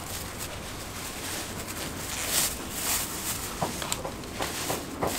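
Thin plastic bag rustling and crinkling as it is pulled open and a bun is slipped in, with a few light knocks near the end.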